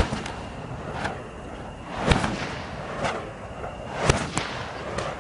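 Fire whip cracking, sharp single cracks about once a second, with a quick double crack near the end; the first crack is the loudest.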